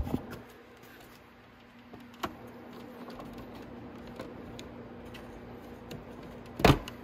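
Hard plastic motorcycle side fairing being handled and pressed into place. A few faint taps are followed near the end by one sharp plastic knock as the panel seats against the tank. A faint steady hum runs underneath.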